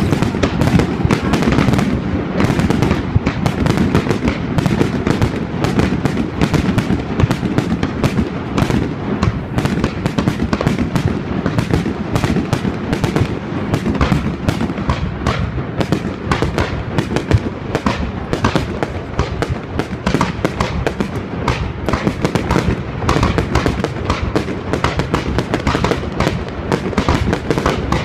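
Fireworks display: aerial shells launching and bursting in a dense, continuous barrage of sharp bangs and crackles.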